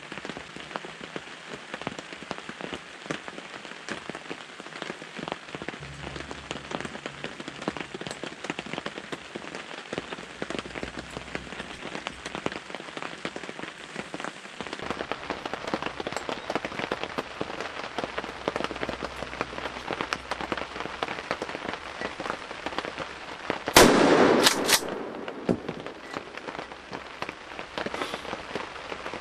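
Steady rain falling throughout. About 24 seconds in, a single loud shotgun blast with a short rumbling tail, followed by two quick sharp clicks: the shot at the turkey gobbler.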